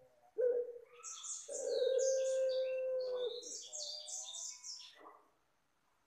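Puter pelung ringneck dove cooing: a short note, then one long drawn-out coo held about two seconds, then a shorter wavering note. A small songbird chirps rapidly and high-pitched over the coo.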